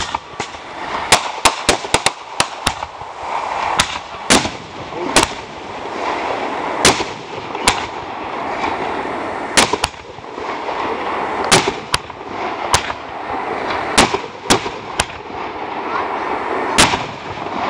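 Fireworks going off: about two dozen sharp bangs and pops at irregular intervals, some in quick clusters, over continuous background noise.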